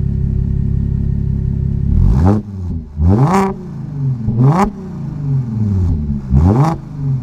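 Exhaust of an Audi S4's supercharged 3.0-litre V6, idling steadily and then revved four times in quick blips, each rising and falling fast.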